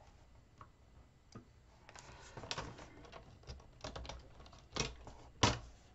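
Sheet of scrapbook paper being handled and lined up on a paper trimmer: scattered light clicks, taps and rustles, with two sharper clicks near the end.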